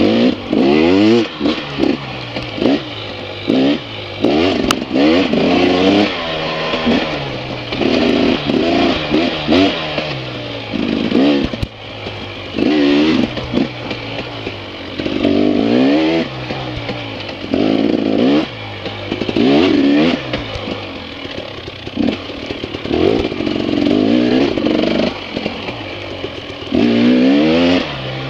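Dirt bike engine revving hard and easing off over and over as the rider works the throttle through the trail turns, its pitch rising and falling every two to three seconds.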